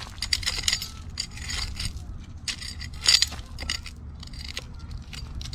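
Gravel and small rocks being scraped aside, with a run of short, irregular scrapes and clinks of stone on stone.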